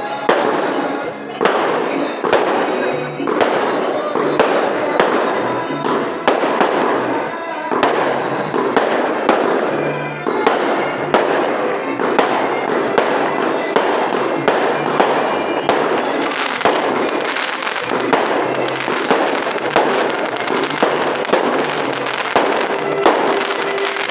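Fireworks going off: a dense crackle with many sharp bangs, several a second and irregular, packing more closely together in the second half.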